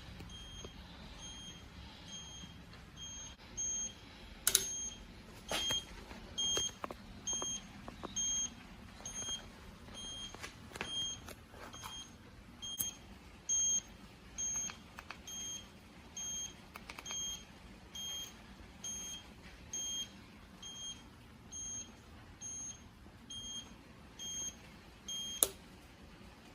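Electric scooter's turn-signal beeper: one high beep repeating steadily, about three beeps every two seconds. A few sharp clicks come in between, the loudest about four seconds in and another near the end.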